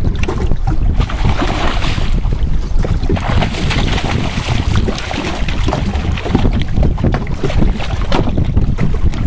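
Wind buffeting the microphone over choppy river water, with splashing as a hooked fish thrashes at the surface beside the boat around the middle.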